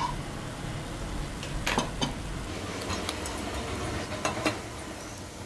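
Dosa cooking on a tawa with a faint sizzle over a steady low hum. Short metallic clinks of kitchen utensils come about two seconds in and twice in quick succession a little past four seconds.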